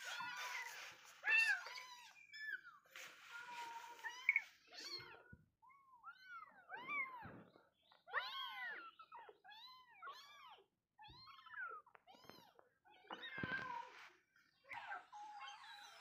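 Young kittens mewing over and over: many short, high-pitched calls that rise and fall in pitch, often overlapping one another, with a few brief noisy bursts among them.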